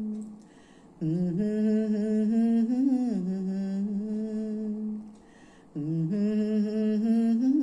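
A woman humming a Malayalam film-song melody unaccompanied, in two long phrases of held, gliding notes with a short breath between them.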